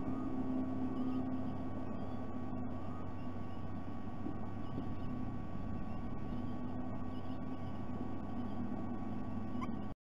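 Steady low electrical hum over outdoor background noise, with a few faint, short rising chirps from distant birds, one of them near the end.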